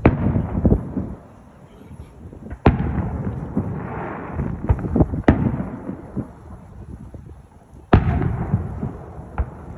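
Aerial firework shells bursting: four loud bangs about two and a half seconds apart, each followed by a rolling echo, with a few smaller cracks in between.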